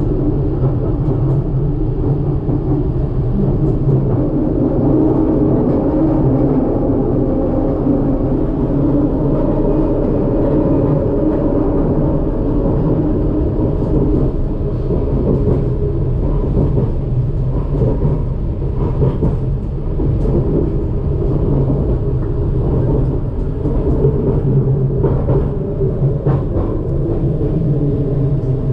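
Detroit People Mover automated train, driven by linear induction motors, running along its elevated track: a steady rumble of the car on the rails, with scattered short clicks and knocks in the second half.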